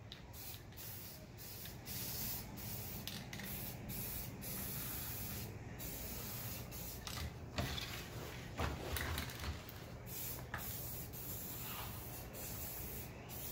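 Aerosol spray can of primer hissing in a series of short bursts with brief pauses between them, coating the bare-metal bead edge of a steel wheel rim section by section.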